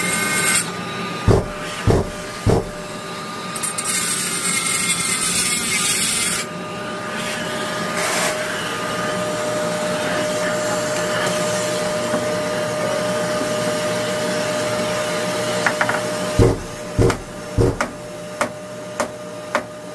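Hilti dust extractor running with a steady motor whine. There are loud bursts of power-tool noise near the start and again a few seconds in. Sharp knocks come three times early on, then as a run of about six near the end.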